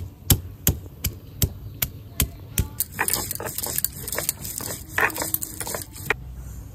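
Stone pestle (nora) pounding ginger and garlic on a stone grinding slab (sil), a steady run of sharp knocks nearly three a second. About three seconds in it turns into a rough back-and-forth scrape of stone grinding the paste on stone, which stops shortly before the end.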